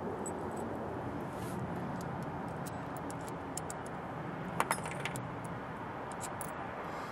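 Small metal fasteners clinking in the hands as a spring washer is fitted onto a bolt: scattered light clicks, with a slightly louder run of clinks about four and a half seconds in, over a steady hiss.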